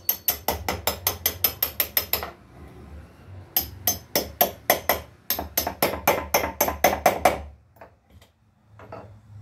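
Hammer nailing two wooden boards together: three runs of quick strikes, about five a second, then a few light taps near the end.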